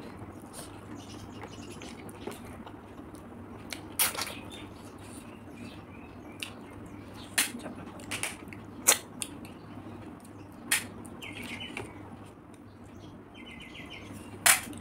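Close-up eating sounds from a meal of fried river snails and rice: scattered sharp clicks and wet smacks, the loudest about four seconds in and near the end, over a steady low hum.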